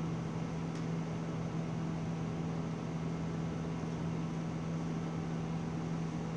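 Steady low hum and hiss of room background noise, with one faint tick about a second in.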